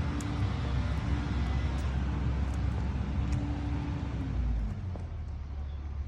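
A motor vehicle running nearby, a low engine rumble with a steady hum that fades away about four and a half seconds in.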